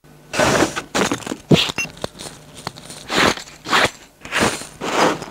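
Chainmail shirt rustling and jingling as it is handled and put on, in a string of short shakes with a brief metallic clink near the start.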